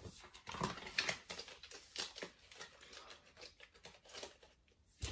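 Packaging and small makeup items being handled: irregular rustling and crinkling with light clicks and taps.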